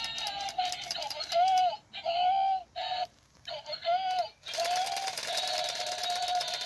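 Battery-powered children's toy chainsaw running its electronic motor sound, a steady buzzing tone with a fast rattle. In the middle it breaks up into several short rising-and-falling revs with brief gaps, then settles back into the steady buzz.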